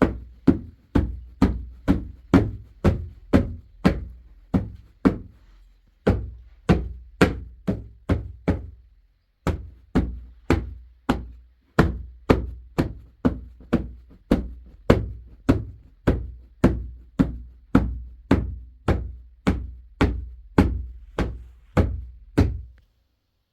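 A steady run of heavy blows, about two a second, each a deep thud with a short ring, broken by two brief pauses and stopping just before the end.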